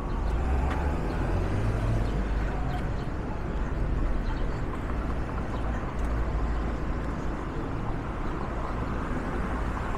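City street traffic: vehicles running past on a busy downtown street, a steady low rumble with no single loud event standing out.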